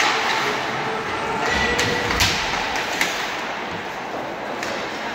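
Ice hockey play on the rink: skates scraping the ice under a steady noisy background, with a few sharp clacks of sticks, puck and players against the boards.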